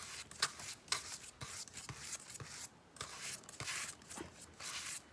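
Paintbrushes dabbing and brushing white paint onto cardboard: irregular short scrapes and soft taps, a few each second, with brief pauses between them.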